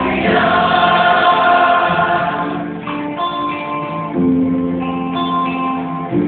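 Gospel worship music: voices holding sung notes over acoustic guitar, the singing dying away about halfway through and plucked guitar notes carrying on alone.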